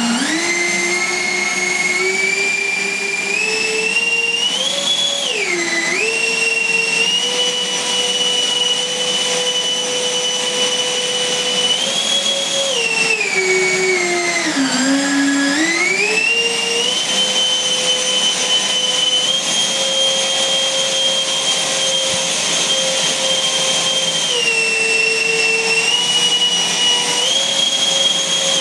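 A 3,000-watt electric ducted-fan power system in a FlyFly MiG-29 foam model jet, running at high throttle on its first motor run. The whine rises over the first few seconds and mostly holds steady. It drops briefly as the throttle is eased about five seconds in, and dips much lower at about the halfway point before spooling back up.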